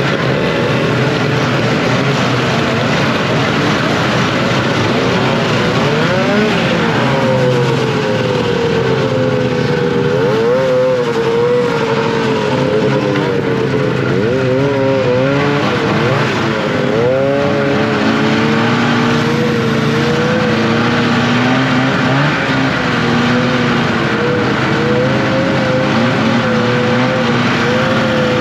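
Snowmobile engine running and revving, its pitch rising and falling again and again.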